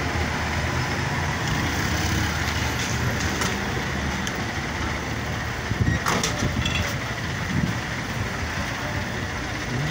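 Steady road traffic, with the engines of passing vehicles rumbling, and a short knock about six seconds in.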